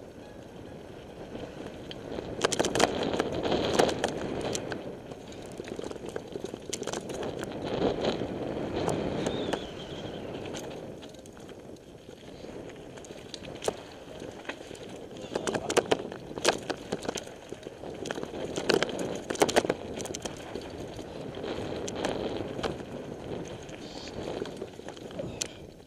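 Mountain bike riding fast down a dirt forest trail: the tyres roll over the ground with a continuous rumble that swells and eases, and the bike makes frequent sharp rattles and knocks as it runs over bumps, in clusters through the descent.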